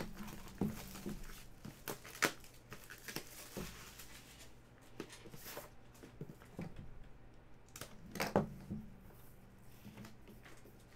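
Plastic shrink wrap crinkling as it is torn and peeled off a sealed trading-card box, then the cardboard box and lid being handled and opened. Scattered rustles and sharp clicks, with louder knocks about two seconds in and again near the end.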